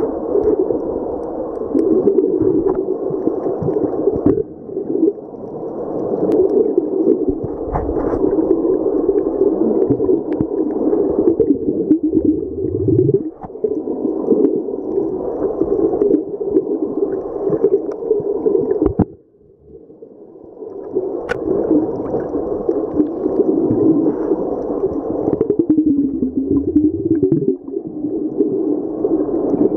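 Muffled underwater noise picked up by a submerged camera: a continuous churning rumble of moving water, which drops away for about a second two-thirds through.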